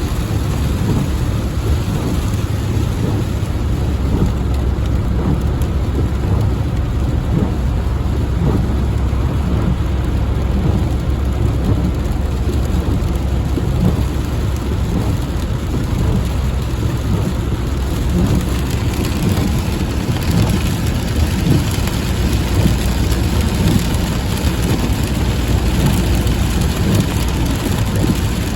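Thunderstorm: steady heavy rain with a continuous low rumble of thunder underneath. The rain's hiss grows brighter about two-thirds of the way through.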